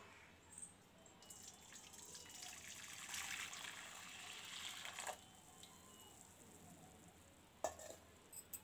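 Dark jaggery syrup (jaggery dissolved in water) poured in a thick stream into a steel kadai, a faint splashing pour that starts about a second in and stops about five seconds in. A couple of light knocks follow near the end.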